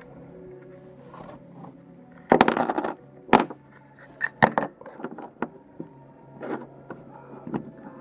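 Small plastic toy parts tipped out of a Kinder Surprise capsule clatter onto a tabletop about two seconds in. Sharp plastic clicks and lighter taps follow as the capsule halves and pieces are handled.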